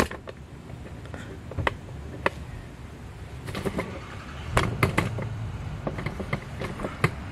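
Handling noise as a camera is picked up and repositioned: scattered clicks and knocks at irregular moments, with a cluster in the middle, over a low steady hum.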